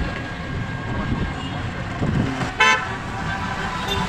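A vehicle horn gives one short toot about two and a half seconds in. Underneath is the steady road rumble of riding in an open three-wheeler rickshaw.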